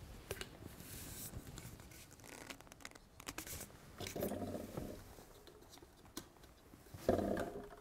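Faint scratching and rustling with scattered small clicks. Two short, louder low sounds come about four seconds in and again about seven seconds in.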